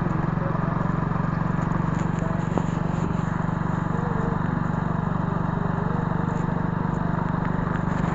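A vehicle engine running steadily with a low, even drone and fine rapid pulsing, heard from on board while moving, with rushing wind and road noise over it.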